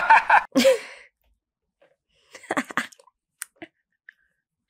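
A woman's brief, soft laughter, then a single sharp click about three and a half seconds in.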